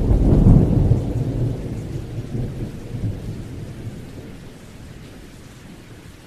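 A thunderclap breaks right at the start and rolls on as a low rumble that fades away over about five seconds, with steady rain hissing underneath.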